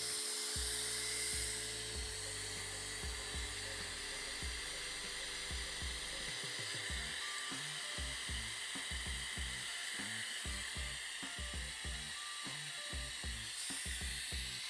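Air-powered vacuum brake bleeder running with a steady hiss of compressed air, drawing brake fluid through the front caliper's bleeder to bleed the brake. Irregular crackling joins it from about six seconds in.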